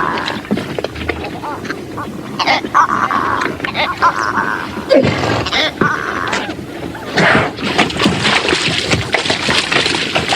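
Zebra braying, several honking calls of about a second each, over a busy background of clatter and noise.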